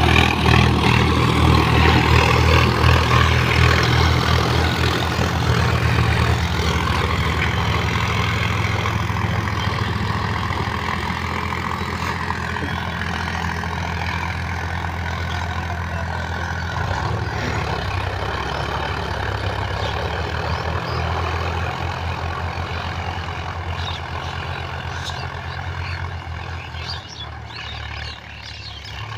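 Diesel engine of a Sonalika DI 50 tractor running under load as it drives a rotavator through the soil, loud at first and fading steadily as the tractor moves away, with a second tractor's engine working farther off.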